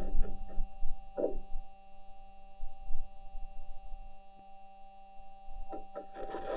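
Perseverance Mars rover driving, heard through its onboard microphone: a steady electrical hum made of several thin tones, with a few scattered knocks from the wheels and suspension on the ground, a stronger one about a second in and a quick pair near the end.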